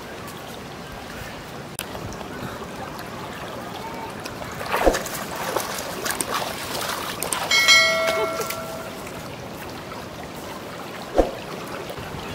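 Steady rush of a shallow stream, with rustling and a couple of sharp thumps from a large fish and a woven bamboo basket being handled. About halfway through, a bell-like chime rings for about a second.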